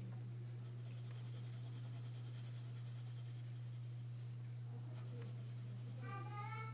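Graphite pencil scratching across drawing paper in sketching strokes, over a steady low electrical hum. A voice is heard briefly near the end.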